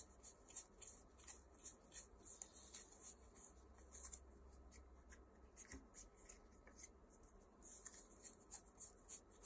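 Faint sorting of a hand of playing cards: many short, irregular dry flicks and rubs of card stock against card, over a faint low steady hum.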